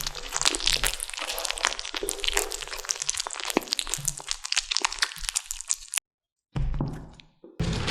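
Kittens chewing a large chicken drumstick: a dense, fast run of crunching and cracking. It cuts off abruptly about six seconds in, then comes back briefly and more faintly.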